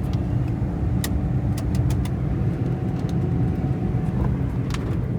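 A car running with a steady low rumble of engine and road noise, and a few light clicks through it.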